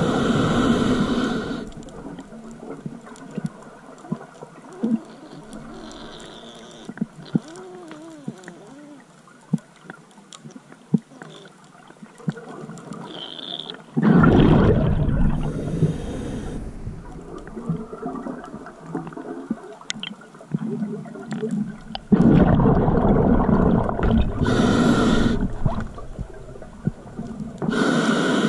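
Scuba diver breathing through a regulator underwater: loud gurgling rushes of exhaled bubbles and the hiss of inhaling, in bursts a few seconds long at the start, about halfway through and near the end, with quieter stretches of faint clicks between.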